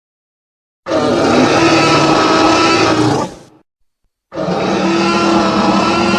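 Tyrannosaurus rex roar sound effect, twice: a long, steady roar starting about a second in that fades away, then after a short silence a second roar that is still going at the end.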